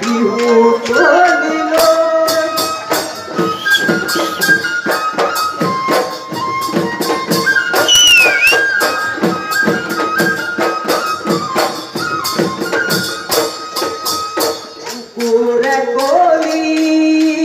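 Live Bihu folk music: dhol drums and small cymbals keep a steady, driving beat under a melody of held notes from a wind instrument, with singing near the start and again near the end.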